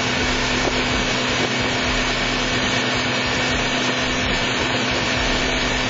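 Mercury outboard motor driving a boat at speed: a steady engine hum under a rush of water.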